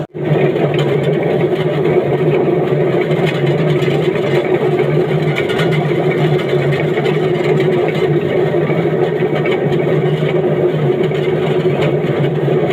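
Electric potato-peeling machine running steadily with a load of potatoes inside, a constant motor hum under a busy churning noise.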